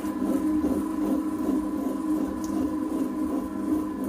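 Table-top wet grinder running steadily, its stone rollers turning in the steel drum and grinding soaked raw rice, grated coconut and cooked rice into dosa batter. This is the final stage of grinding, with the batter already smooth.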